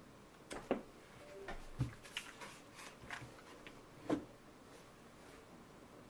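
Mechanical keyboard being picked up, turned over and set down upside down on a desk mat: a few scattered knocks and clicks of the case and keys, the loudest a thump about four seconds in.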